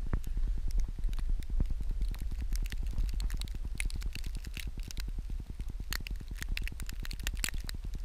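Wind rumbling on the camera microphone in a blizzard, with dense rapid crackling and scraping noises over it.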